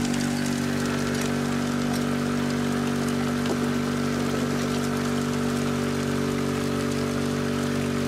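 Water rushing down an aluminium sluice over rubber riffle matting, with the steady hum of the small engine-driven water pump that feeds it running underneath.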